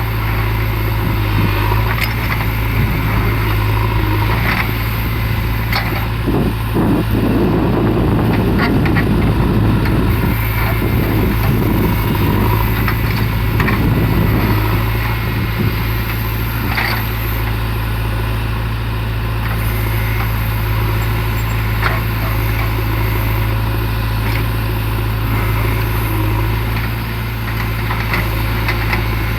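JCB 3DX backhoe loader's diesel engine running steadily under work, with scattered metallic clanks and a rougher, noisier stretch in the middle.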